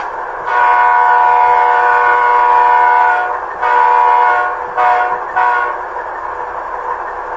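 A model Dash 9 diesel locomotive's Tsunami sound decoder blowing its multi-chime horn through the model's small speaker. It gives two long blasts and then two short ones over the steady sound of the diesel engine running.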